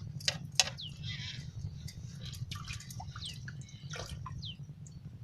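Water dripping and plinking, with scattered sharp clicks and small falling chirps over a steady low rumble.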